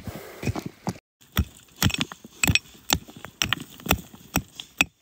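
A small pick striking hard soil and stones at the edge of a hole in the ground: a string of sharp knocks, roughly two or three a second.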